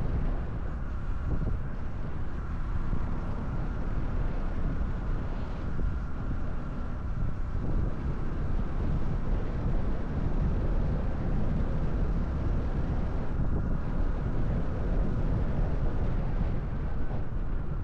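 Single-cylinder engine of a Honda 125cc Cub motorcycle running steadily while riding at street speed, with wind buffeting the microphone.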